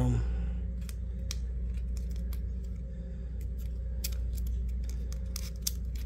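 Scattered small clicks and crisp scrapes of handling as a granulated adhesive grip panel is pressed and readjusted onto a Mossberg MC2C pistol frame. A steady low hum runs underneath.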